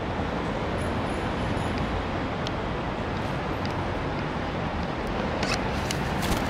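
Steady city traffic noise, an even low rumble, with a few light clicks near the end.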